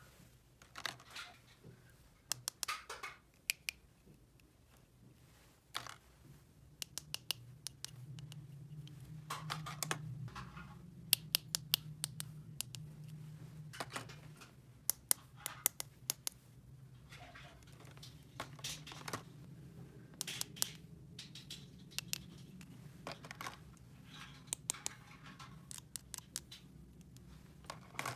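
Small plastic toy parts and packaging being handled: many sharp clicks and taps with short scratchy rustles, over a low steady hum.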